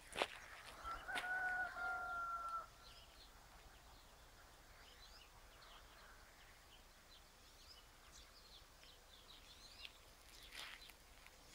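A rooster crowing once, a single long held crow of about two seconds starting just under a second in.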